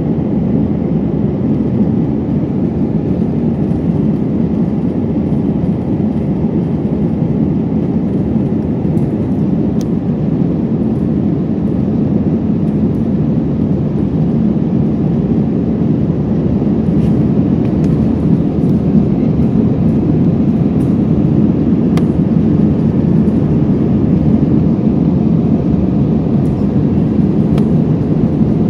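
Steady, loud low engine and airflow noise inside the cabin of an Airbus A320 climbing out after takeoff, growing slightly louder about halfway through.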